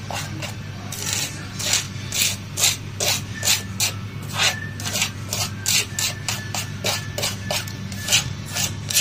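A plastic spoon scraping and stirring dry spice powders and flour together on a plate, in quick repeated strokes about three a second that start about a second in.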